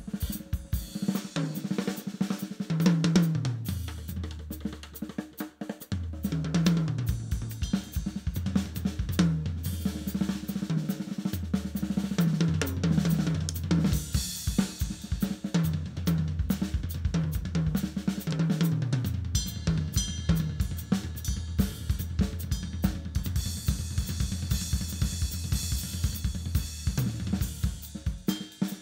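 Live instrumental band: a drum kit plays a busy groove with snare, bass drum, hi-hat and cymbals over an electric bass line of held low notes that step from pitch to pitch.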